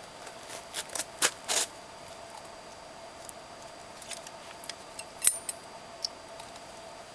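Knife and ferro rod being handled: scattered sharp clicks and light metallic rattles, a quick cluster about a second in and another around five seconds, before any strike.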